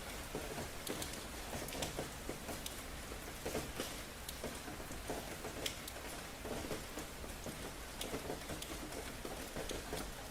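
Steady rain falling, with many irregular taps of drops hitting a surface over a low, steady rumble.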